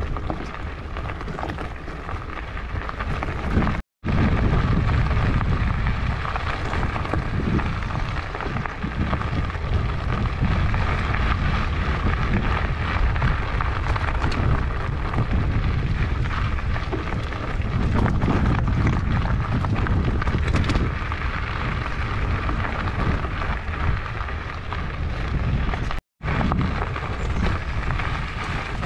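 Fatbike riding over a rough gravel track, heard from a handlebar-mounted action camera: a steady rumble of wind on the microphone with the fat tyres crunching over loose stones and the bike rattling. The sound cuts out for an instant twice, near the start and near the end.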